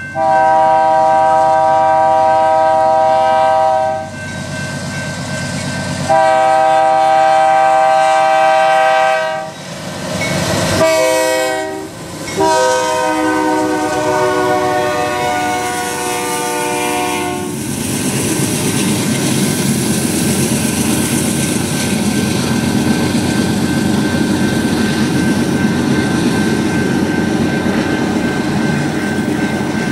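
A BNSF diesel freight locomotive's multi-chime air horn sounds two long blasts, a short one and a final long one, the standard grade-crossing signal. The last blast drops slightly in pitch as the locomotive goes by. The horn gives way to the steady rumble and clatter of autorack cars rolling past.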